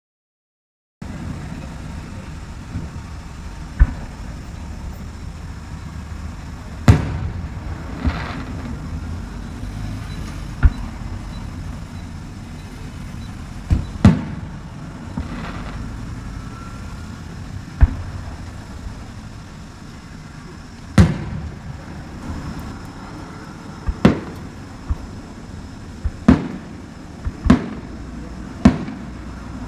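Fireworks shells bursting, about a dozen sharp bangs a few seconds apart that come quicker near the end, over a steady low rumble.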